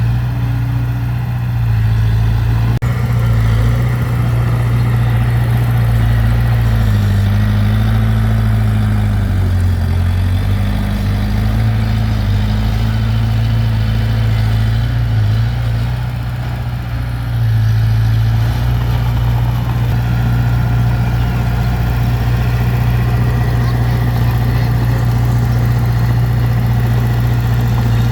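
Heavy diesel engine of earthmoving equipment running steadily, its pitch sagging briefly twice.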